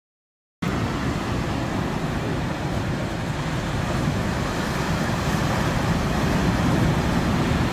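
Surf from a rough sea breaking on a beach, a steady wash of noise that starts abruptly about half a second in.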